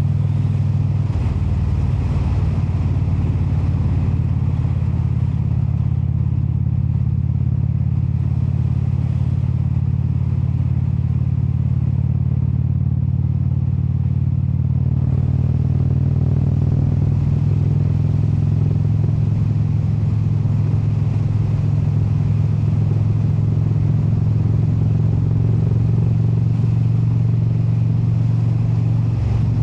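Indian motorcycle's V-twin engine running steadily at cruising speed. Its note shifts slightly about a second in and again midway.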